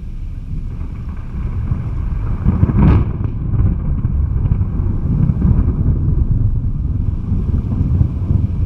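Thunder rumbling low and steadily, with a sharper crack about three seconds in.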